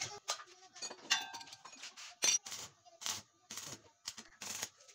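Scattered metallic clicks, taps and knocks of hand tools and steel parts being handled on a homemade band saw mill's steel frame, about ten in all. One clink about a second in rings briefly, and the loudest knock comes a little past two seconds.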